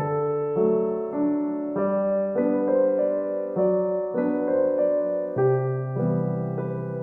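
Background music of soft electric piano playing a slow series of sustained chords, changing about every half second.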